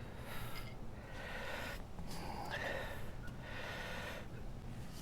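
A man breathing heavily from exertion, several loud breaths in and out about a second apart, as he strains to force a plug into a punctured motorcycle tire.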